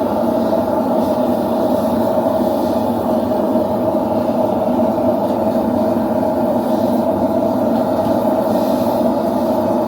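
A forge running: a steady rushing noise with a constant hum in it, and no hammer blows.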